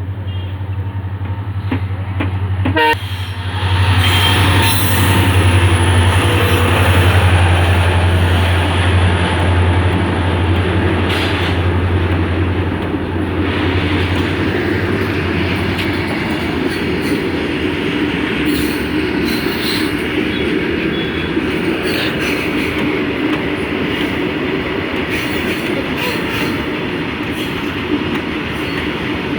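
A long train passing close by: a steady low drone for about the first half, then the continuous rolling rumble and clatter of the wagons going by, with a sharp knock near the start.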